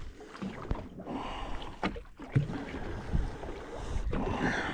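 Wind and water noise aboard a small fishing boat at sea, with a few short, sharp knocks.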